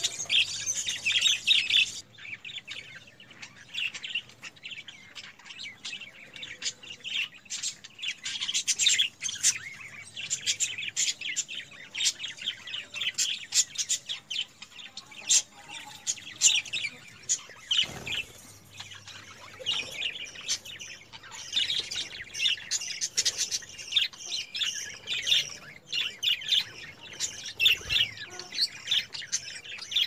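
A flock of budgerigars chattering and chirping without a break, many short rapid calls overlapping.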